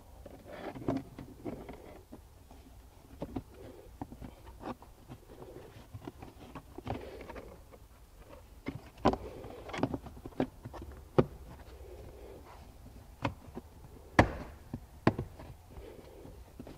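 Plastic under-seat battery cover of a Jeep Grand Cherokee being handled and fitted over the battery compartment in the floor: rustling, then a series of sharp plastic clicks and knocks as it is pressed into place, the loudest about two thirds of the way through.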